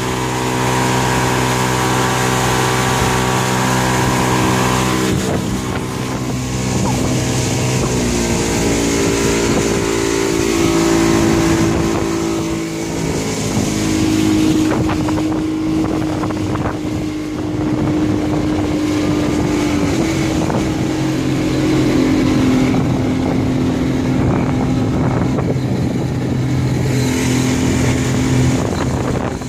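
Outboard motor running at full throttle, driving a work skiff fast over open water, with the rush of water and wind noise on the microphone. The engine note holds steady, stepping up in pitch about eight seconds in.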